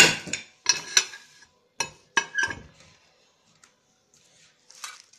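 Aluminium pressure cooker being set down and handled on a table: several metal clanks, each ringing briefly, in the first two and a half seconds, the first the loudest, and a fainter clank near the end.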